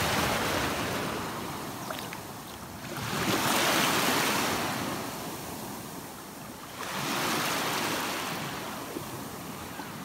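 Small sea waves washing in over a pebbly shore: three rising and falling surges of surf a few seconds apart.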